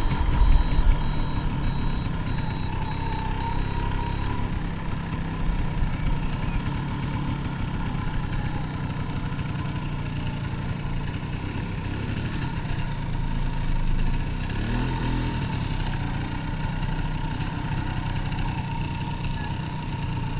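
1988 MZ ETZ 250's single-cylinder two-stroke engine running at low speed, heard from on the bike. Its pitch rises briefly about three quarters of the way through.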